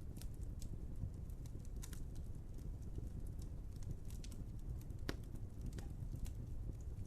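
Wood fire crackling: a steady low roar of flames with scattered sharp pops and snaps, one louder pop about five seconds in.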